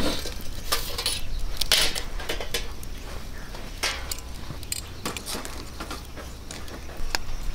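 Resinous pine firewood crackling and popping in a campfire, irregular sharp pops throughout. Metal clinks and rattles near the start and at about two and four seconds as a small folding table with a camp stove on it is lifted and carried.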